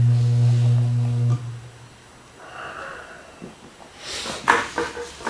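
Magnaflux magnetic-particle inspection yoke humming steadily while energised on cast iron, cutting off suddenly about a second and a half in. A few short breathy rushes of air follow near the end.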